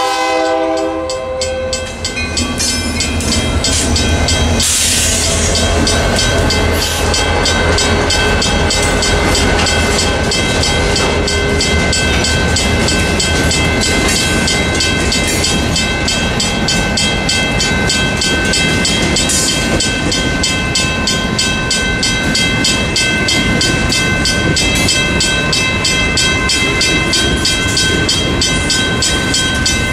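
Diesel freight train passing through a grade crossing: its horn chord ends in the first second or two, then the locomotive's engine rumbles past and the freight cars roll over the crossing with wheel clatter. A short hiss sounds about five seconds in, and the crossing signal bell rings steadily throughout.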